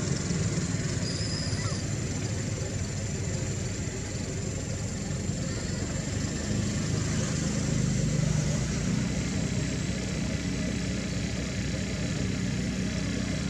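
An engine idling: a steady, even low hum that runs without clear changes.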